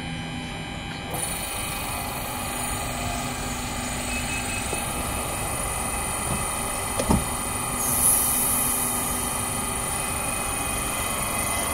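Adelaide Metro 4000 class electric railcar standing at the platform, its onboard equipment giving a steady hum with a high whine. There is a single thump about seven seconds in, then a short hiss.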